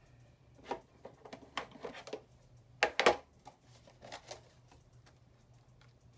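Light clicks and knocks of craft supplies being handled on a desk, several in the first four seconds, the loudest about three seconds in.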